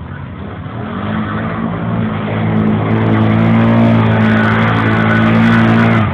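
ATV engine revving up about a second in and held at high revs under throttle, then dropping off suddenly near the end.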